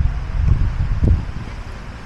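Wind buffeting the microphone: a low rumbling noise that eases off over the second half.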